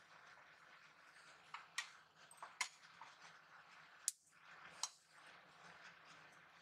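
Wooden spatula stirring thick semolina halwa (rava kesari) in a steel pot, faint, with a few sharp clicks and pops spread through.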